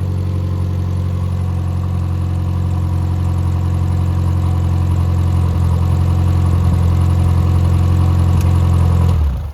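Freshly rebuilt Triumph Spitfire 1500 four-cylinder engine running steadily at a constant speed with no muffler, so a little loud. It is switched off near the end and the sound dies away within a fraction of a second.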